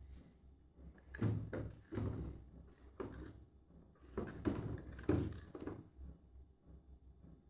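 Large EVE LF280 prismatic LiFePO4 cells being lowered and slid into a battery box, giving a run of knocks and short scrapes as they bump against neighbouring cells and the box walls. The loudest knocks come about a second in and about five seconds in.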